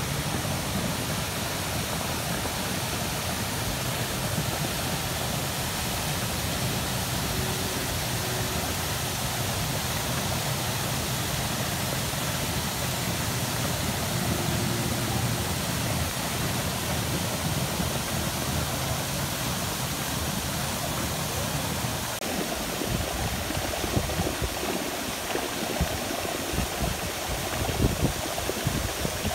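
Fountain jets spraying and splashing into a pool: a steady rushing hiss of falling water. A low rumble underneath drops away about two-thirds of the way through, leaving closer, more uneven splashing.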